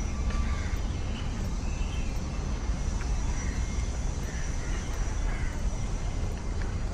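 Outdoor ambience: a steady low rumble with faint bird calls now and then.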